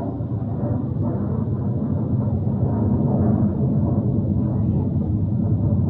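Low, steady engine rumble that grows a little louder about two seconds in.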